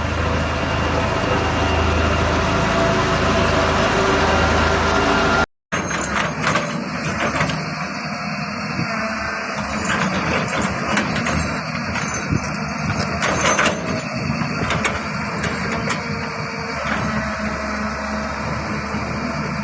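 Heavy construction machinery running with a steady low engine hum. After a short break about five seconds in, it carries on with a noisier stretch full of irregular knocks and clanks.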